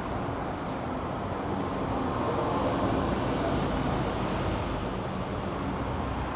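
City street traffic noise: a steady wash of passing vehicles, swelling slightly in the middle.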